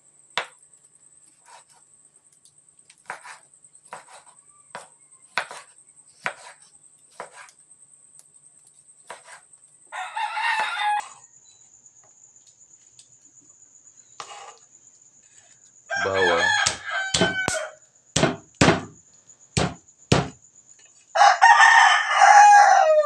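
Knife knocking on a cutting board as a tomato is cut into wedges, a few soft knocks at a time, with a rooster crowing three times in the background, the last crow near the end the loudest sound.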